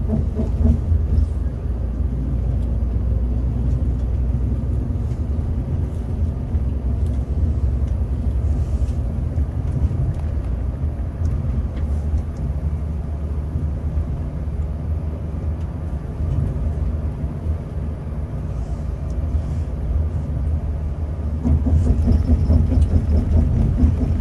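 Scania K360 coach's 13-litre DC13 inline-six turbodiesel running on the move, heard from the driver's cabin as a steady low rumble. About 21 seconds in it gets louder, with a stronger engine note.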